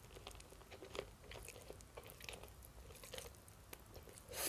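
Faint, close-miked chewing of a mouthful of sushi roll: soft, irregular mouth clicks and smacks.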